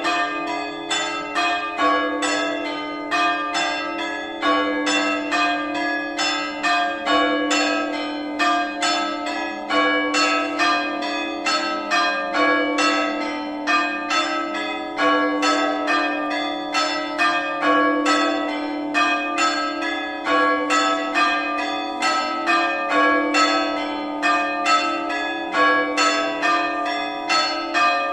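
Several monastery bells of different pitches ringing together in a continuous peal. Smaller bells strike several times a second over a deeper bell that sounds about every two and a half seconds.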